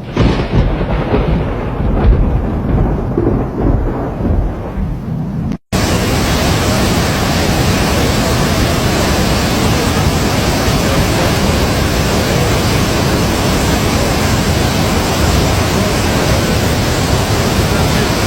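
Heavy rainstorm. For the first five or so seconds there is a loud, uneven low rumble. Then, after a sudden cut, a steady, loud hiss of downpour runs on.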